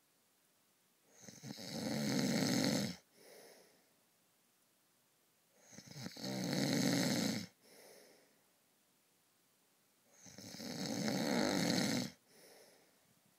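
A sleeping person snoring: three loud snores about four and a half seconds apart. Each swells up over a second or so and stops abruptly, followed by a short, quieter breath.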